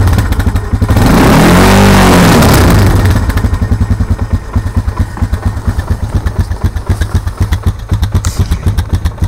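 2004 Honda Recon ES ATV's single-cylinder four-stroke engine coming down from a rev, given one more brief blip of the throttle, then settling to an idle with a regular knock, about six beats a second: the noticeable engine knock at idle.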